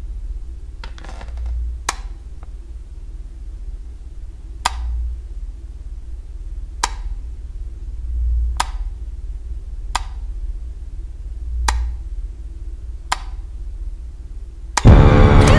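A wall light switch clicked off and on about seven times, single sharp clicks one to two seconds apart, over a low rumbling drone that swells and fades. Near the end a loud horror-music sting cuts in suddenly.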